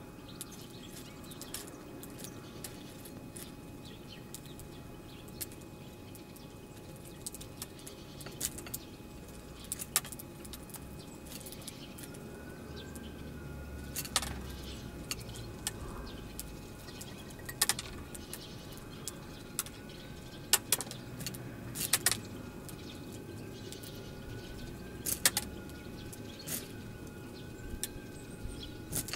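European goldfinches calling: short sharp chirps scattered irregularly, some in quick pairs, over a steady low background noise. From about twelve seconds in, a thin wavering tone runs on underneath.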